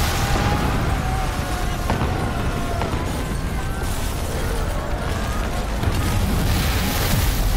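Film sound effects of an earthquake bringing down a building: a heavy, continuous low rumble with crashing debris, and sharp cracks about two and three seconds in.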